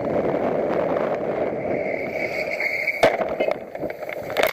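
Steady road and wind noise from a moving vehicle, with a high wavering squeal for about a second. A sharp crash impact follows about three seconds in, then rattling clatter and a second loud bang near the end.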